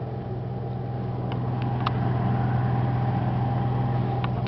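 Onan Marquis 5500 RV generator running with a steady hum, growing slowly louder, with a couple of faint ticks about one and two seconds in.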